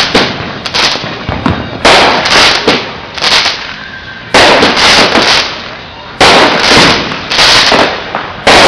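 Backyard fireworks going off in a rapid series of loud bangs, about one or two a second, each dying away over about a second.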